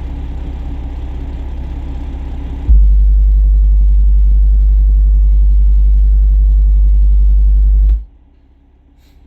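A single SoundTown Aries 10-inch subwoofer plays a steady, very loud 50 Hz test tone for about five seconds, starting suddenly a few seconds in and cutting off abruptly. It is an SPL burp for a meter reading, peaking at 127.2 dB. Before it there is a steady low rumble.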